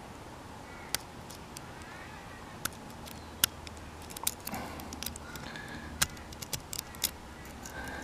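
Bobby-pin pick and tension wrench working the pins of a Defiant five-pin deadbolt cylinder: small sharp metallic clicks and ticks at uneven intervals, more of them in the second half.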